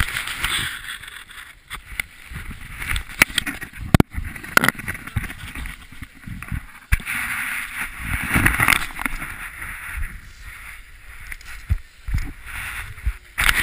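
Handling noise on a GoPro camera in its housing: irregular knocks, clicks and scraping rubs as it is moved about and fitted.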